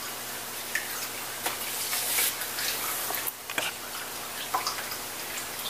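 Dryer sheets wrapped around baking soda crinkling and rustling as they are twisted shut by hand, with small irregular ticks and crackles.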